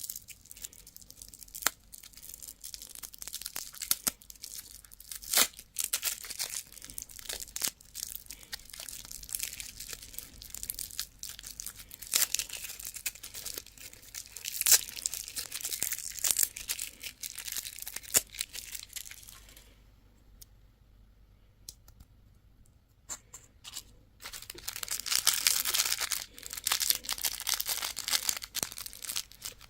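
Candy and surprise-egg wrappers being crinkled and torn open by hand: irregular sharp crackles and rustling. There is a short lull about two-thirds of the way through, then a burst of dense crinkling.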